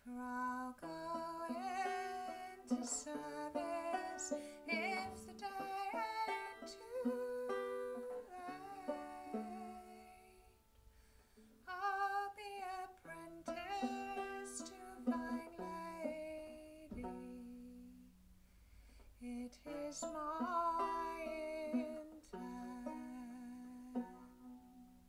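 A woman singing a folk song, accompanying herself on a plucked banjo, in phrases with short breaks between them.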